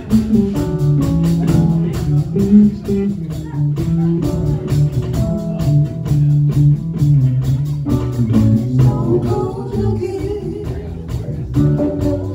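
Live blues band playing: electric bass, electric guitars and drum kit at a steady beat.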